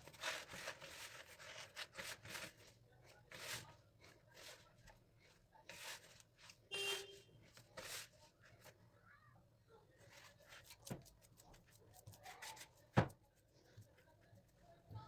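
Faint rustling and rubbing from things being handled, with scattered light clicks and one sharper knock about 13 seconds in.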